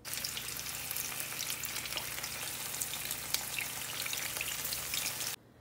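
Shrimp rubbed with turmeric and salt sizzling in hot oil in a pan, a steady frying hiss full of fine crackles, which cuts off suddenly just before the end.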